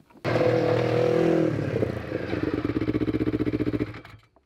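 Snowmobile engine revving hard as the sled accelerates away. It starts suddenly, runs loud with a rapid pulsing, and drops off shortly before the end.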